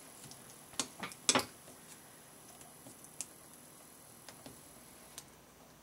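Quiet handling of a small folded paper petal on a craft mat: a few light clicks and taps as the paper is folded and pressed flat by hand, the sharpest a little over a second in.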